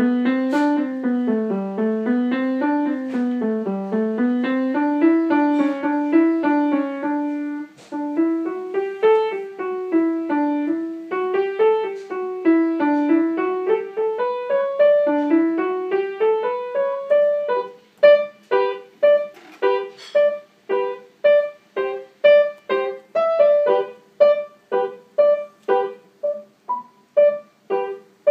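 Yamaha upright piano played solo: a flowing line of connected notes rising and falling, then, about two-thirds of the way in, short detached notes struck evenly about twice a second.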